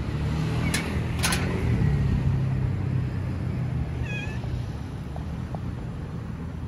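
A stray cat gives one short meow about four seconds in, over a steady low hum; two sharp clicks come about a second in.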